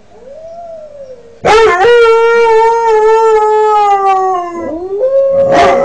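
A five-month-old Northern Inuit dog puppy howling, still learning to sing. A short faint rising-and-falling call comes first, then a loud, long howl of about three seconds that sags slowly in pitch, and a second howl starts near the end.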